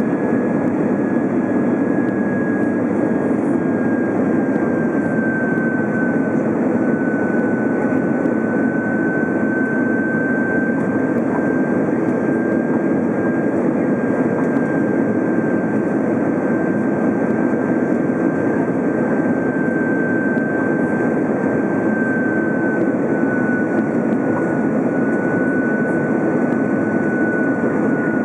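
Airbus A330's jet engines in flight, heard inside the passenger cabin: a steady, even rush with a thin high whine over it that dips slightly in pitch about six seconds in and again near twenty-two seconds.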